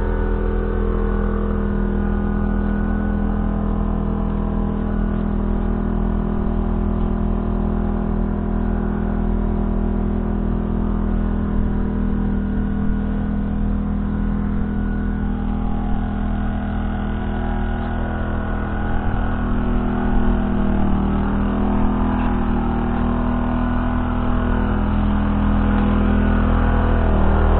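A Valtra T174 Direct tractor's 7.4-litre six-cylinder diesel engine running steadily, getting a little louder near the end.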